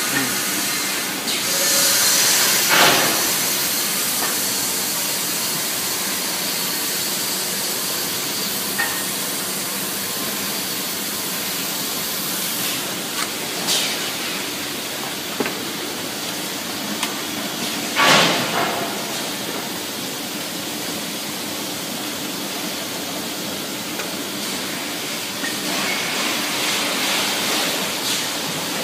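Steady hiss of an EPP foam steam-moulding machine, with a louder burst of hiss about two seconds in and a few sharp knocks, the loudest about eighteen seconds in, as moulded foam parts are pulled from the mould.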